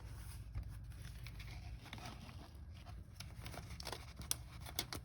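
Faint rustling and a few soft clicks from a rolled diamond-painting canvas being handled, over a steady low hum.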